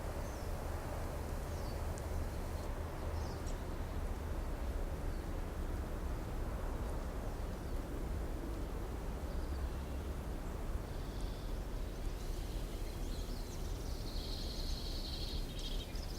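Steady outdoor background noise with a low rumble, and faint high chirping coming in over the last few seconds.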